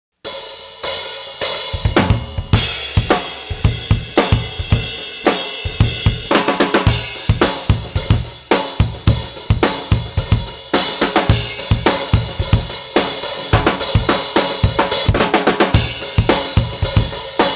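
Drum kit groove starting abruptly a fraction of a second in: kick drum, hi-hat and cymbals under a 14" x 5.5" rock maple snare with a Remo Controlled Sound batter head, played open with no dampening or muffling.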